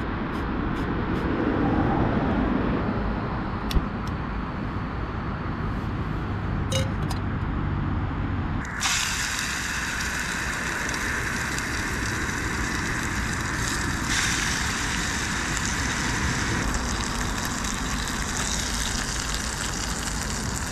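A gas camping stove's burner runs with a low, steady rumble under a pan. About nine seconds in, bacon laid into the hot oiled pan starts to sizzle, a loud, bright frying hiss that carries on steadily.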